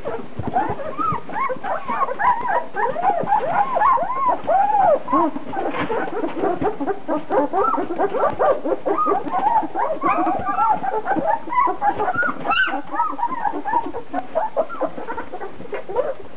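Two-week-old German shepherd puppies whimpering and squeaking, many short rising-and-falling calls overlapping one another, with a single sharp click about three-quarters of the way through.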